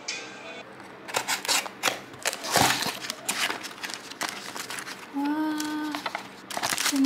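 Plastic packaging being handled and opened: a run of sharp clicks and crinkling rustles, loudest about two and a half seconds in. Near the end a woman says a drawn-out "wow".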